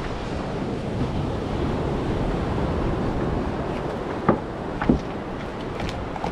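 Steady sea surf with wind buffeting the microphone. A little past the middle come two sharp knocks about half a second apart.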